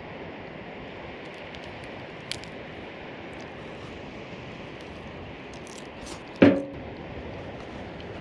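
Campfire crackling faintly over a steady rushing background noise, with a small click about two seconds in and one sharp, loud knock about six and a half seconds in.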